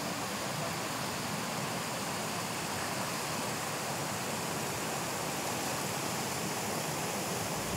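The Bhadra river in flood rushing over a submerged bridge: a steady, even rush of fast water.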